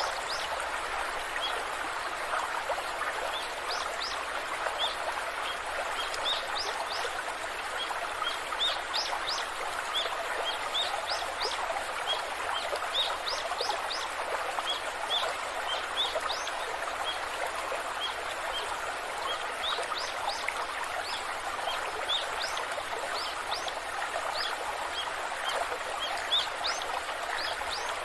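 A waterfall rushes steadily, with birds giving many short, high chirps over it throughout.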